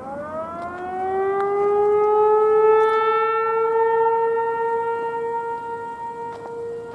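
Federal Signal 508-128 outdoor warning siren winding up on its Alert (steady-tone) test cycle: the pitch rises over the first two to three seconds, then holds one steady tone, getting louder toward the middle and easing a little near the end.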